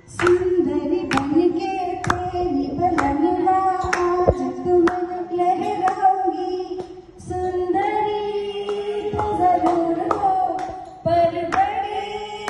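Singing in long held notes, with sharp hand claps keeping time about once a second; the singing breaks off briefly twice.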